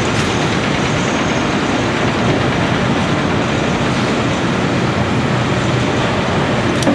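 Steady construction-site din: a Cat 312CL excavator's diesel engine working, mixed with city noise, and one sharp click near the end.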